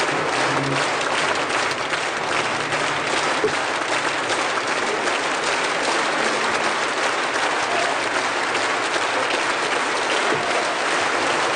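Large audience applauding steadily, the even clatter of many hands clapping at once.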